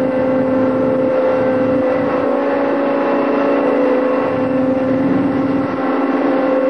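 A tugboat's engine running steadily under towing load, a constant hum at one unchanging pitch with rough noise beneath.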